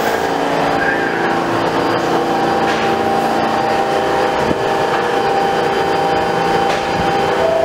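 R46 subway train standing at the station platform with its doors open: a loud, steady mechanical hum with several held pitches over a rumbling haze of station noise.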